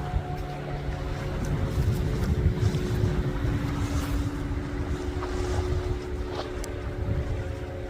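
Steady drone of a motor, a few even tones held throughout, with wind rumbling on the microphone.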